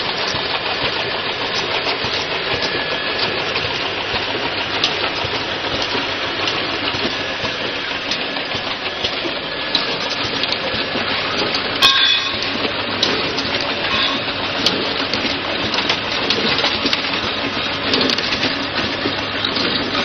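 Vial filling, stoppering and capping machine running: a steady mechanical clatter of small glass vials and moving parts, with many small clicks and one sharper click about twelve seconds in.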